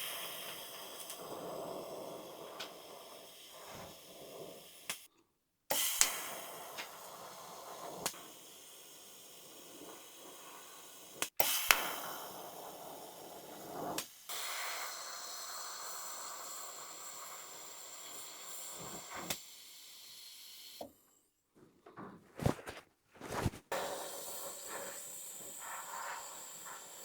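Electric arc welding on the two-part tool-post spindle holder: a steady hissing arc, broken off abruptly several times, with a few sharp clicks.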